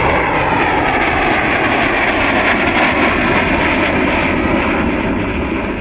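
B-2 Spirit stealth bomber's four turbofan engines going by in a low flypast, a steady jet rush with a whine that falls in pitch as it passes.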